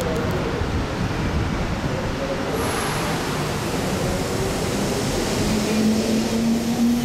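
JR 211 series electric multiple unit pulling away from the station, with a steady rumble of wheels on rail. From about five seconds in, a low electric motor whine rises slowly in pitch as the train gathers speed.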